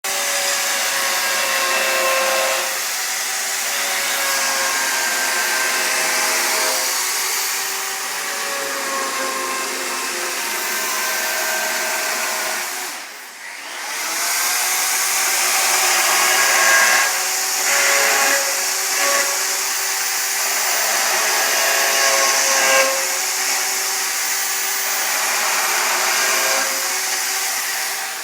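Chainsaw running and cutting into wood, its motor pitch rising and falling as it works through the cut, with a brief drop in speed about halfway through.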